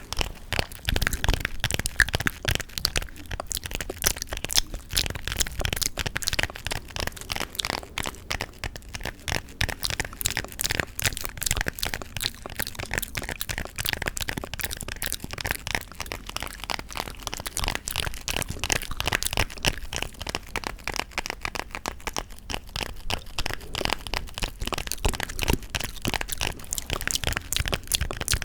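Close-miked gum chewing and tapping: a dense, unbroken run of sharp clicks and crackles, many a second.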